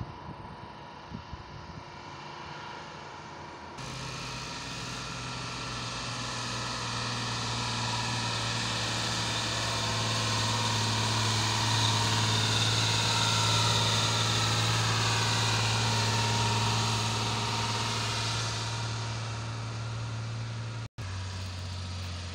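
Laden truck's engine and tyres as it drives past on the road: a steady engine hum that swells to its loudest about twelve seconds in, then fades. After a short break near the end, the engine note is lower.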